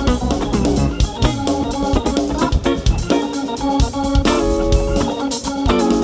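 Live rock band playing an instrumental passage, the organ to the fore over drums and guitar, its chords held longer from about four seconds in.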